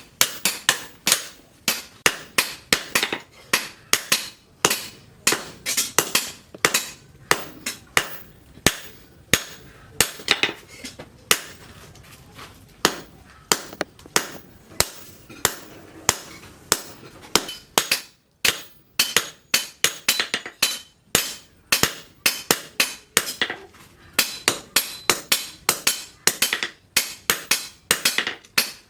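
Hand hammer striking steel from a leaf spring on an anvil during forging: a steady run of sharp, ringing blows, about two or three a second, with a couple of short pauses.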